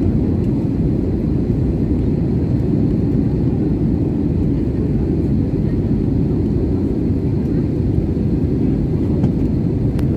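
Steady low cabin noise of a jet airliner in flight, the turbofan engines and rushing air heard from a window seat during the descent to land.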